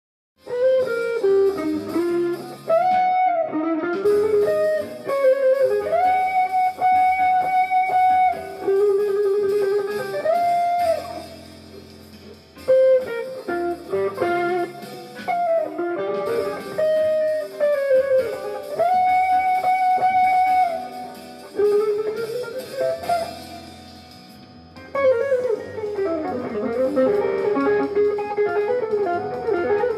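Jazz fusion instrumental: a guitar plays a lead melody in phrases of held notes with pitch bends and slides, over a lower accompaniment.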